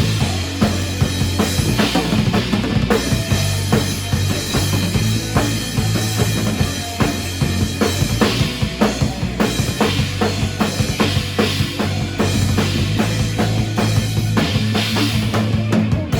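Band music driven by a drum kit, kick and snare hits keeping a steady beat over a sustained bass line, with no singing.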